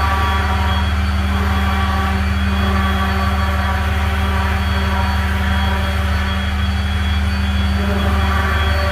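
A steady, loud mechanical drone from a running motor, a constant low hum with an even tone that does not change.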